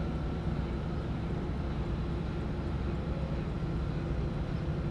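Arleigh Burke-class destroyer's machinery running: a steady low drone with several humming tones.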